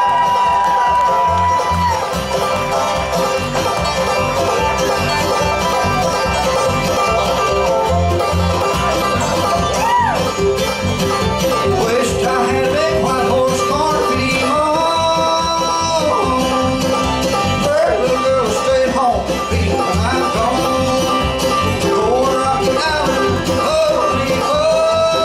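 Bluegrass band playing an instrumental live: a resonator banjo played clawhammer style leads over mandolin, acoustic guitars and upright bass, with a steady beat and sliding melody lines.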